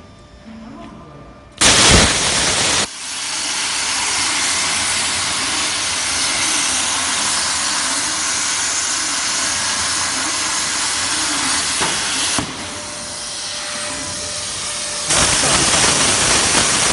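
A loud, steady hiss that starts suddenly a couple of seconds in, drops back about twelve seconds in and comes back louder near the end.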